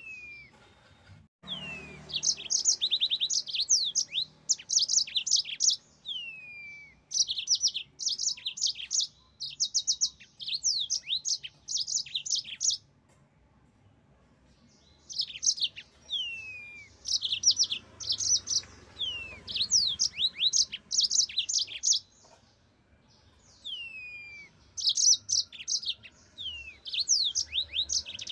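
Yellow-fronted canary singing in long, lively bouts of rapid high trilled notes mixed with downslurred whistles, with pauses of a second or two between bouts.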